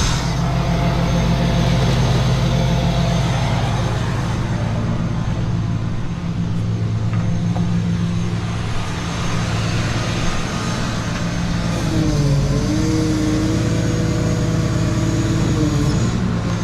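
Tow truck's engine idling steadily. About twelve seconds in, a higher wavering tone rises over it and holds for about four seconds.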